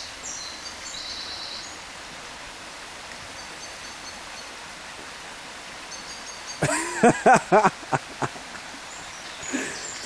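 Steady rush of a shallow burn's running water, with a few short high bird chirps. About seven seconds in, a man's voice calls out loudly for a second or so.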